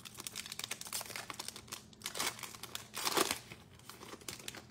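Foil wrapper of a Panini Prizm football card pack crinkling and tearing as it is ripped open by hand, with louder crackles about two and three seconds in.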